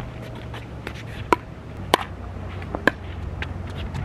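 Pickleball rally: paddles striking the hollow plastic ball with sharp pops. The three loudest come about a second in, near the middle and about three seconds in, with fainter hits and bounces between.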